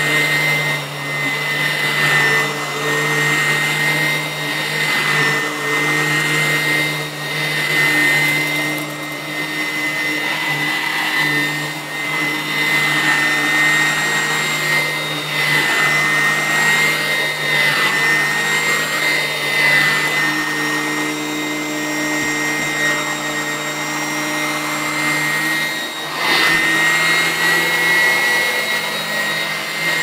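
Sanitaire upright vacuum cleaner running on carpet: a steady high motor whine whose sound swells and eases every second or two as it is pushed back and forth. A brief knock near the end.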